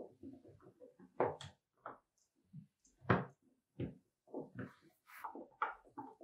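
Boxer dog chewing and gnawing, a run of irregular crunches and knocks, with the loudest strokes about a second in and about three seconds in.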